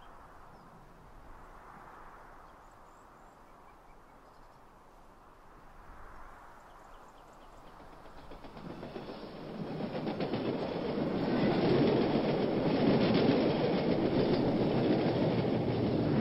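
High-speed electric train passing at speed: a rush of wheel and air noise that builds from about halfway through and stays loud to the end, with fine rapid clatter from the rails. Before it there is only a faint, wind-like hush.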